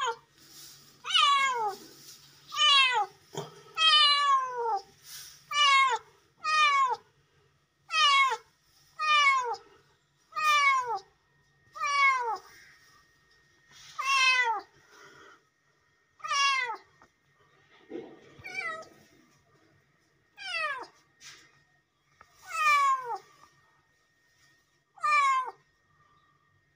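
Young tabby kitten meowing over and over, about sixteen loud calls spaced one to two seconds apart, each falling in pitch.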